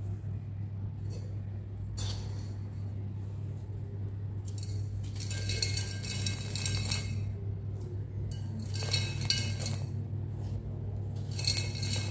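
Crumbled sand-cement grit rubbed between the fingers and trickling from the hand into a bowl, a gritty patter with light clinks of grains on the bowl, coming in several spells. A steady low hum runs underneath.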